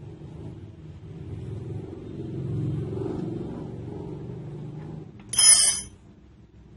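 Handling noises while disassembling an angle-grinder chainsaw attachment: a low rumble of metal parts being shifted on a work surface, then one sharp metallic clatter about five seconds in.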